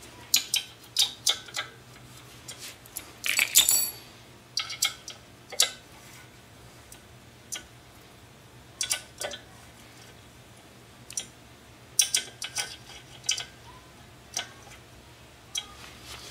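Metal-on-metal clicks and clinks from hand work with an Allen wrench at a motorcycle's swingarm spool sitting in an aluminium paddock-stand cradle: scattered single taps, with a quick cluster of them about three and a half seconds in.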